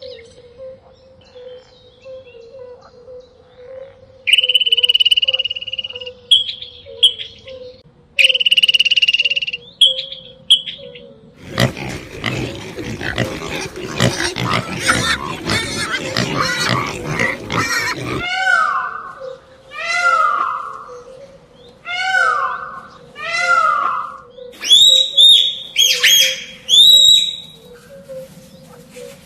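A run of different animal calls, one after another. First come two spells of a steady high tone, then a harsh, noisy stretch lasting about six seconds, then a series of repeated falling calls, and finally quick high calls near the end.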